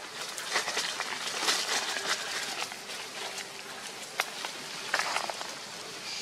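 Dry leaf litter rustling and crackling irregularly, with sharp snaps and ticks, as young long-tailed macaques wrestle and scamper over it.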